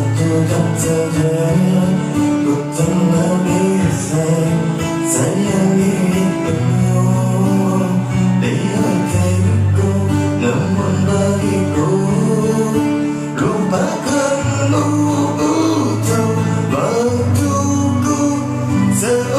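Music: a pop ballad with guitar and a steady bass line, and a man's voice singing at times.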